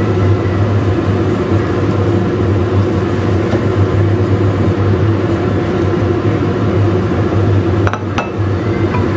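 Steady loud mechanical hum with a strong low drone, and a couple of short light knocks about eight seconds in.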